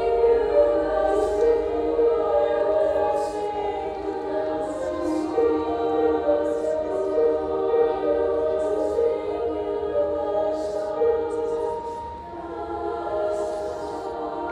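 Choir singing a slow passage in long held chords, with the s-sounds of the sung words audible; a short lull about twelve seconds in, then a new phrase begins.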